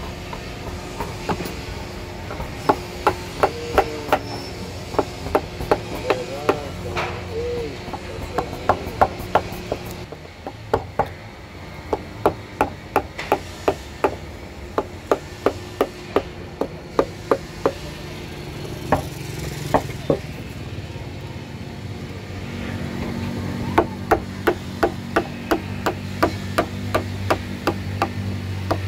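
A wood-carving chisel being struck over and over to cut into wood, in a steady run of sharp taps about two to three a second. The taps pause briefly about two-thirds of the way through, then start again.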